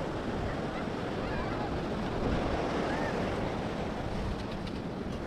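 Ocean surf washing onto a sandy beach, with wind on the microphone and faint distant voices of people on the beach.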